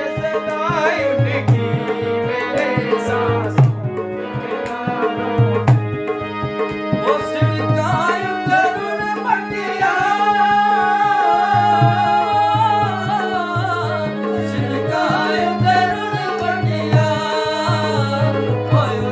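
Live folk song: male voices singing over an electronic keyboard's sustained chords and a steady beat on a pair of hand drums. A long held sung note comes near the middle.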